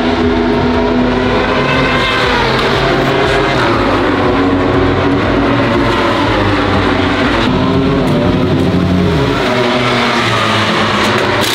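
Racing motorcycle engines running in the pit lane, their pitch rising and falling throughout.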